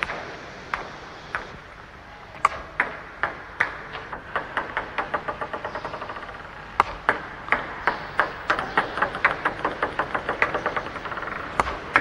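Table tennis balls clicking sharply off the paddle and table as forehand backspin serves are played, one after another. Several runs of quickening bounces come as balls settle on the table.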